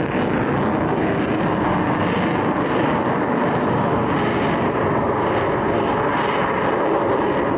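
F-35 Lightning II fighter in flight, manoeuvring, with steady, loud jet noise from its single F135 turbofan engine.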